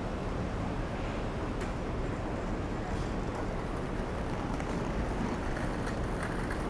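Steady city street traffic noise at an intersection, a continuous low rumble without distinct events.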